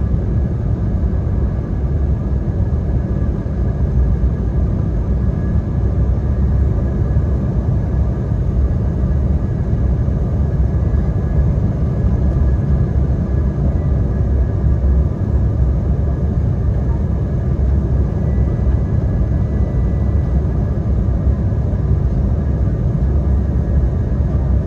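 Steady cabin noise inside an Embraer E175 airliner descending on approach: a low rumble of airflow and its GE CF34 turbofan engines, with a faint high engine whine above it.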